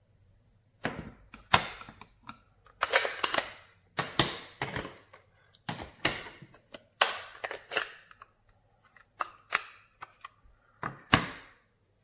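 About a dozen sharp, irregular clicks and knocks of hard plastic stamping supplies handled on a tabletop: an acrylic stamp block and snap-shut ink pad cases.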